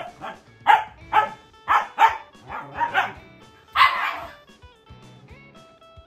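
Siberian husky puppy play-barking: a quick run of about six short barks in the first three seconds, then one longer, rougher bark about four seconds in, inviting another dog to play. Background music runs underneath and is left alone after the barks stop.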